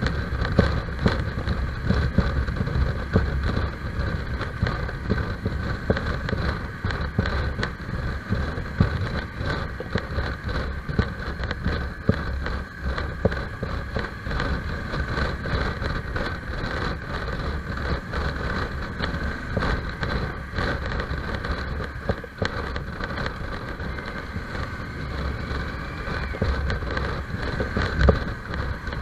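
Motorcycle engine running at a steady cruising speed, with wind rushing over the microphone as a low rumbling haze.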